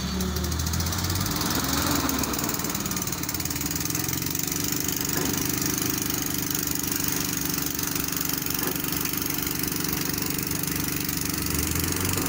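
Diesel engine of an F15 pick-and-carry crane running steadily while the crane holds an 8-ton concrete chamber on its hook.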